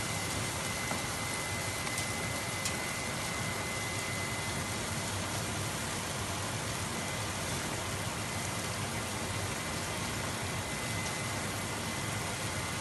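Curry paste with onions and peppers sizzling steadily as it fries in hot oil in a pot.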